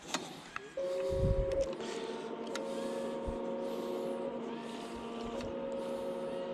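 Electric motors of a radio-controlled bait boat running under way, a steady whine of several fixed tones that starts about a second in. A short low thump comes just after the whine begins.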